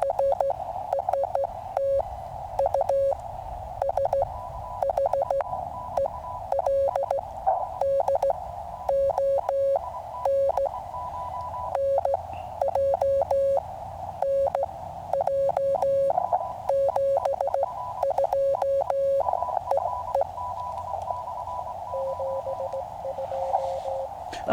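Morse code (CW) from a QCX mini transceiver's audio: a single tone keyed on and off in dots and dashes over the receiver's steady narrow-band hiss. A fainter, higher-pitched Morse tone comes and goes in the middle.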